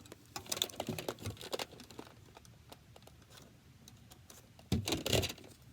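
Plastic clicks and rattles of Nerf blasters and foam darts being handled and loaded, with a louder bump about five seconds in.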